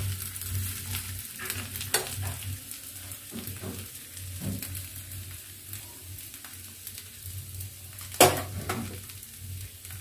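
A bottle-gourd batter pancake sizzles steadily in hot oil in a frying pan. A metal spatula scrapes and knocks against the pan a few times, loudest with a sharp clank about eight seconds in.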